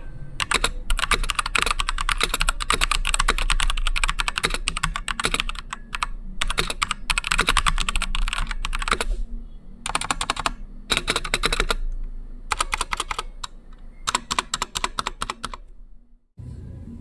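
Typing on a MageGee Star-100 mechanical keyboard with Jixian Red linear switches: fast runs of keystrokes in bursts of a few seconds each, broken by short pauses.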